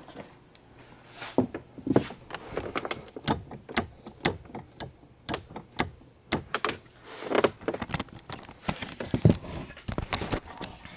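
Irregular clicks and knocks of hands and tools working on the trunk lid's fittings, with a faint high-pitched tick repeating evenly somewhat under twice a second.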